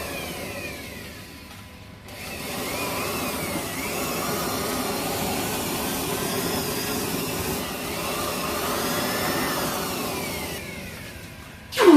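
Electric grinder running against steel, its whine wavering with the load. It is quieter for the first two seconds and trails off near the end, where a brief loud sound drops steeply in pitch.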